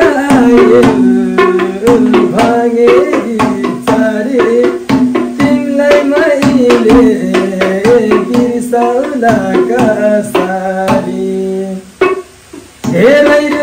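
Instrumental interlude of a Nepali song: tabla strikes and a moving melody over a steady low drone. The music dips briefly near the end, then picks up again.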